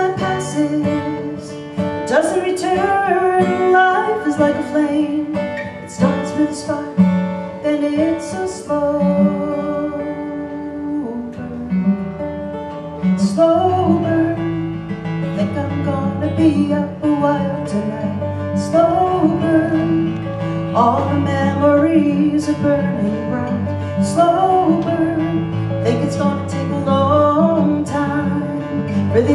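A woman singing a folk song to her own acoustic guitar strumming, with an electric bass accompanying her; the bass line comes in fuller about halfway through.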